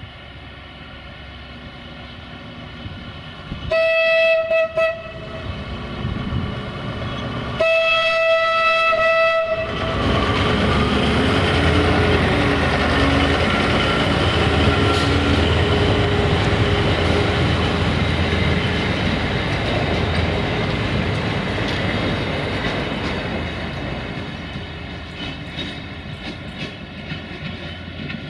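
CFR LDH1360 diesel-hydraulic locomotive sounds two horn blasts, the second longer. It then powers up to pull away with its passenger train: the engine runs loud under load, with wheels clicking over rail joints, and fades as it moves off.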